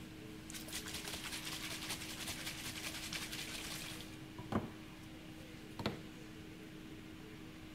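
Oily water mix sloshing and rattling inside a plastic centrifuge tube being shaken for about three and a half seconds, then two sharp knocks about a second apart as the tubes are set down on glass jars.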